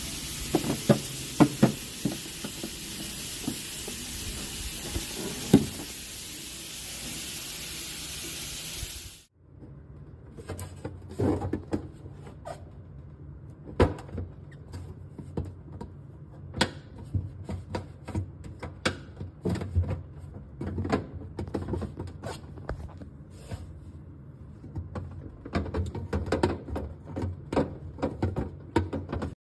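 Plastic fridge organizer boxes being handled and set on refrigerator shelves: scattered knocks and clatter, with a steady hiss under the first nine seconds that cuts off suddenly.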